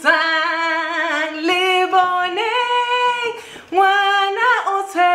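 A woman singing without accompaniment: long held notes that waver and climb higher in the middle, with a short break about three and a half seconds in.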